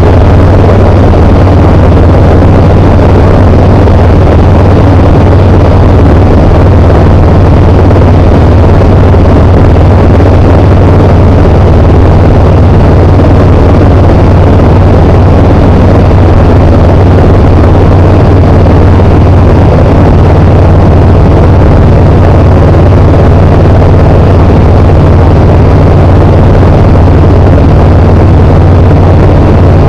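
Tecnam P92 Echo Super light aircraft's engine and propeller running steadily at constant power, a loud, unchanging drone with a strong low hum.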